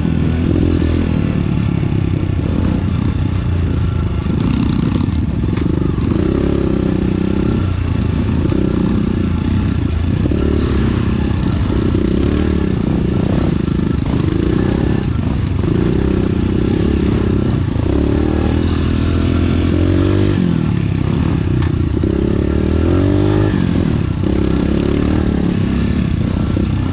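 Enduro dirt bike engine running under way on a trail, its revs rising and falling every second or two with the throttle.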